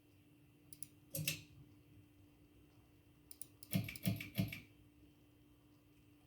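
A few light clicks about a second in, then a cluster of sharper clicks and three firm knocks around four seconds in, over a faint steady hum.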